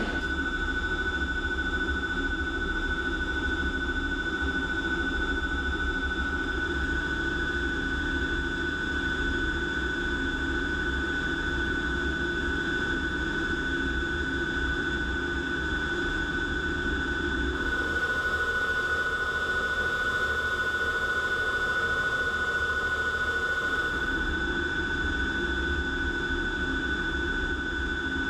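Steady drone of a fighter jet heard from inside the cockpit in flight: a deep engine and airflow rumble with a constant high whine over it. The lower hum shifts a little about two-thirds of the way through, then settles back.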